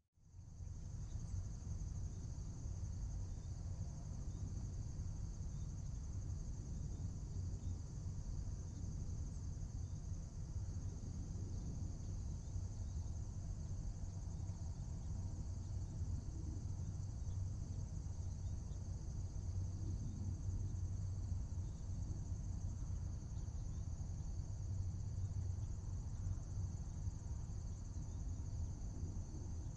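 Chorus of insects such as crickets, a steady high trill that does not let up, over a steady low rumble of outdoor background noise.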